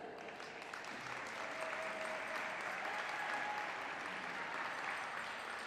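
Audience applauding: steady clapping that slowly fades towards the end.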